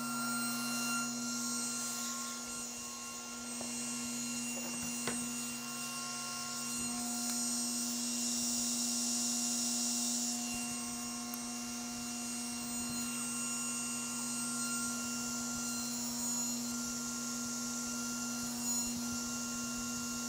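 Steady low machine hum with a faint hiss over it, and one light knock about five seconds in.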